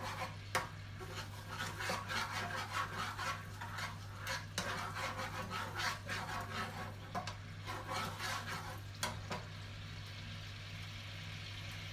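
Slotted spatula stirring and scraping pad Thai sauce around a non-stick wok, in a run of quick strokes that stops about nine or ten seconds in, leaving the soft sizzle of the sauce cooking in the pan.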